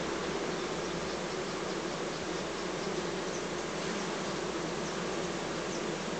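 A large mass of honeybees buzzing steadily over an open hive box, a dense, unbroken hum.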